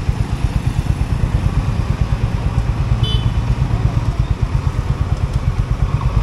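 Honda CB 350 RS's single-cylinder engine running at a steady pace, a regular low pulse from the exhaust throughout.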